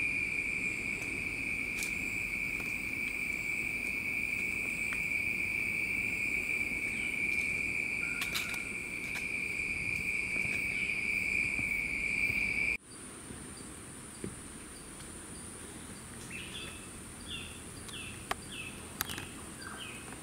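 Insects calling: a steady high-pitched drone on one note that cuts off abruptly about two-thirds of the way through. A fainter, higher insect tone follows, with a run of short falling chirps near the end.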